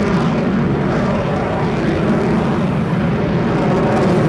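Loud, steady jet roar from a Sukhoi Su-30MKM fighter's twin AL-31FP turbofan engines as it flies a low-speed, nose-high display manoeuvre.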